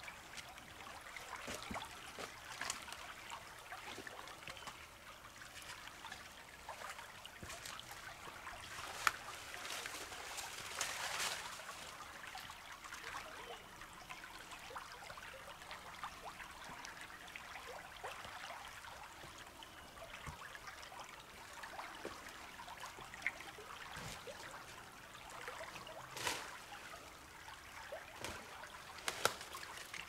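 Stream water trickling steadily, with scattered sharp clicks and a few brief louder swells.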